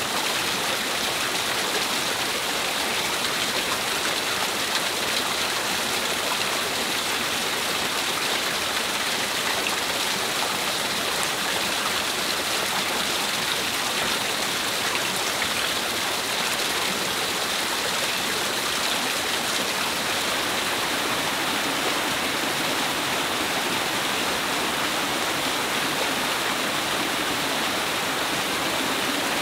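A rocky mountain stream and small waterfall rushing steadily over boulders, an even, unbroken rush of water.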